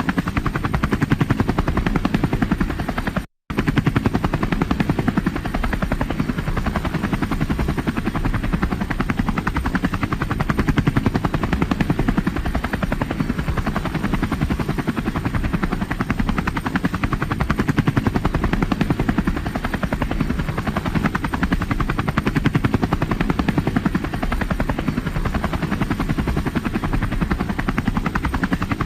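Helicopter in flight: a steady, fast rotor-blade chop over a low engine drone. The sound cuts out completely for an instant about three seconds in, then resumes unchanged.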